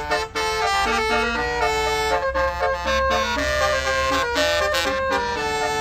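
Tour bus's basuri 'telolet' horn playing a melody of held notes that step up and down in pitch, with a few very short breaks between phrases.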